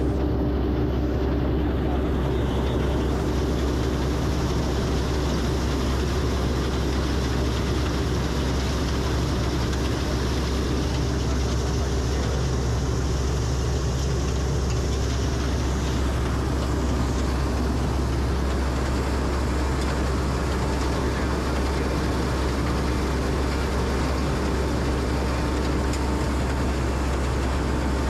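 Rice combine harvester running steadily while it cuts standing paddy, heard from the operator's seat: an even, low machine drone with a constant hum.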